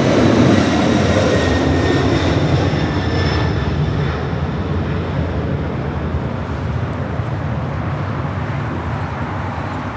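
Boeing 747-400 freighter's four turbofan engines at takeoff thrust during the initial climb: a loud, steady roar with a faint high whine in it, slowly fading as the jet climbs away.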